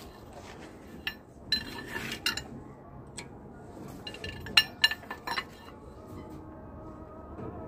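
Sharp metallic clinks of a long breaker bar and socket on the crankshaft pulley bolt of a JCB 444 diesel engine, as the engine is turned over by hand to bring number one cylinder up for locking the fuel pump timing. One cluster of clinks comes about a second and a half in and another near five seconds in.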